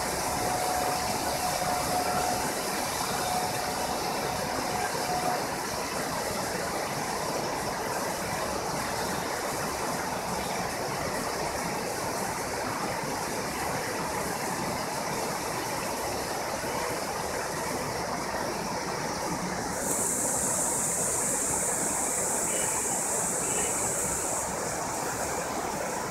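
Heavy monsoon rain falling as a steady, even rush of noise. About twenty seconds in it turns harsher and a little louder for a few seconds. A faint steady tone runs under it for the first five seconds or so.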